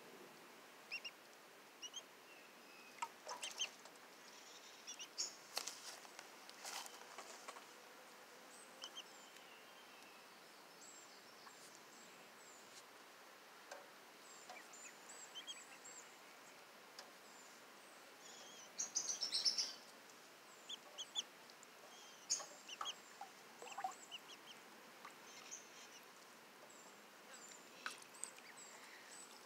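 Cayuga ducklings peeping in short, high chirps scattered throughout, with water splashing now and then as a duckling paddles in a plastic tub; a louder burst of splashing comes about two-thirds of the way through.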